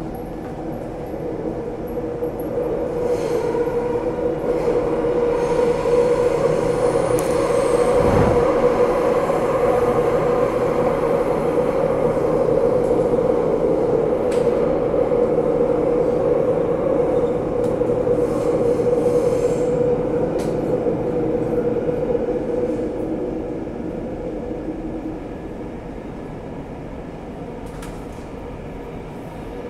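Singapore Downtown Line metro train running, heard from inside the carriage: a steady rumble with a held hum. It grows louder over the first few seconds, holds, then eases off over the last few seconds. There is a single low thump about eight seconds in.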